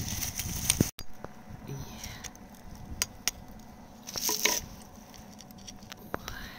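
Metal pry tool tapping and scraping against rock around an embedded crystal: a few scattered sharp clicks, with a louder scrape about four seconds in. The sound cuts out for an instant about a second in.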